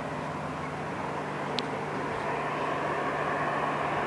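Steady outdoor background noise with a constant low hum, and one brief sharp click about one and a half seconds in.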